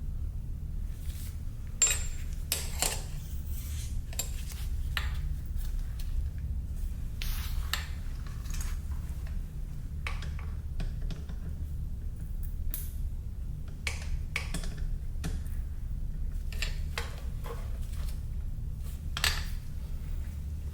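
Metal tools and parts clinking and tapping in irregular strikes during hands-on dirt bike maintenance, over a steady low hum.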